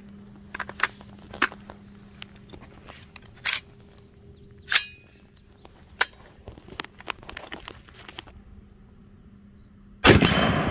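Scattered metallic clicks and clacks of a Sig Sauer 716i AR-10 rifle being handled as a magazine is seated and the rifle is readied, then a single loud .308 rifle shot about ten seconds in, ringing out with a long echo.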